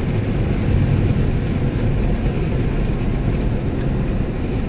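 Steady low road and engine rumble inside the cabin of a truck being driven.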